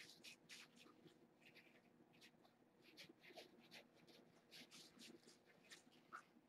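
Faint, irregular scratching and rustling as kittens wrestle and bat at a toy on a fleece blanket.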